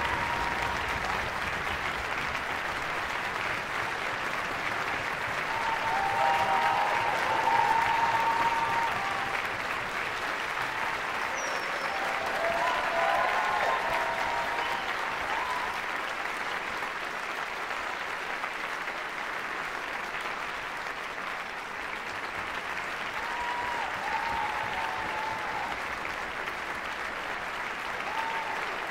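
Theatre audience applauding steadily, a full ovation for the performers taking their bows, with a few short calls from the crowd rising above it now and then.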